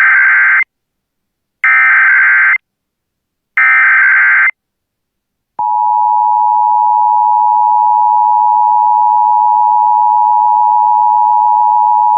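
Emergency Alert System header on NOAA Weather Radio: three bursts of digital data tones, each about a second long and about two seconds apart. After about a second of silence the long steady warning alarm tone begins and keeps sounding, signalling that a warning message, here a tornado warning, is about to be read.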